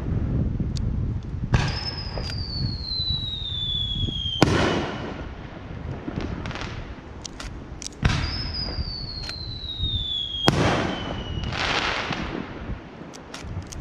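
Fireworks display: aerial shells bursting with sharp bangs about four and a half and eight seconds in, amid rumbling and crackling bursts. Twice a high whistle falls steadily in pitch over about two and a half seconds.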